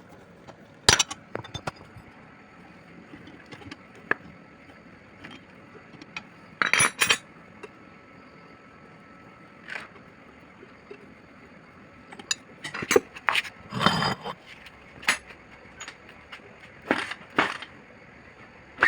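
Irregular metallic clinks and knocks from tools and parts being handled, in scattered groups with a busy cluster about two-thirds of the way through.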